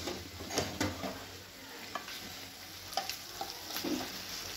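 Fried chicken pieces being spooned into a hot kadhai of onion-tomato masala, sizzling, with a few short scrapes and knocks of the spoon against the pan.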